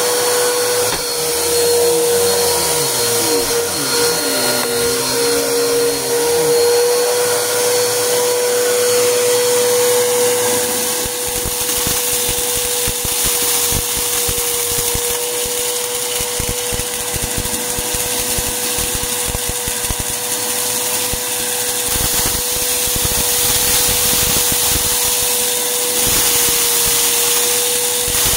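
Bagless upright vacuum cleaner running steadily with a constant motor whine over the rush of suction. It is pushed over carpet sucking up a pile of paper confetti and glitter, which crunches and rattles as it goes up.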